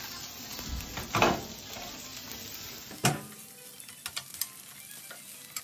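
Garlic butter sizzling and crackling in a small pan, with a loud knock about a second in.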